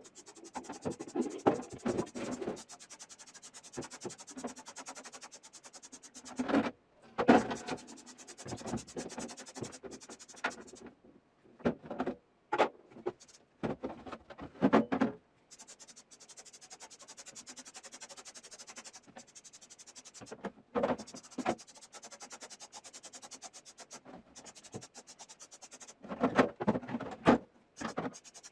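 Irregular knocks, scrapes and rubbing of hard parts being handled, over a faint fast even buzz that drops out now and then.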